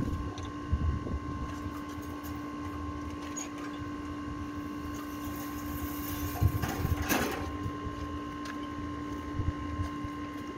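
A steady mechanical hum with a fixed pitch runs throughout. Low knocks of handling come and go, and a short hiss sounds about seven seconds in.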